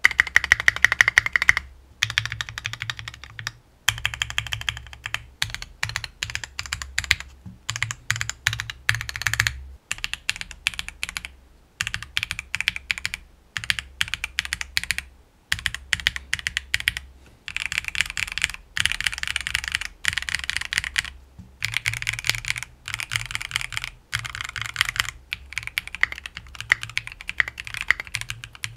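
Typing test on a stock Epomaker FirstBlood B67, a 65% gasket-mount mechanical keyboard with an acrylic case and polycarbonate keycaps. Fast runs of keystrokes come in bursts of one to three seconds, with brief pauses between them.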